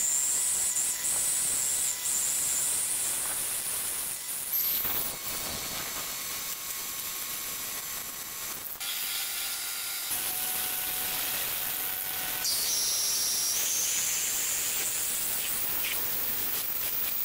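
Homemade lathe turning a large twist drill bit that bores into a clamped steel block: a steady grinding hiss with a high-pitched squeal that rises and falls. The bit is cutting steel dry, hot enough to smoke.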